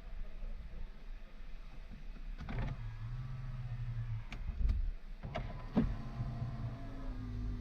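A small electric motor in the car runs in two steady spells, the second higher in pitch, with sharp clicks and knocks between them, like a power window or other electric accessory being worked.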